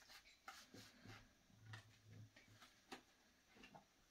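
Near silence, broken by a few faint scattered ticks and taps of Uno cards being handled and laid on a table.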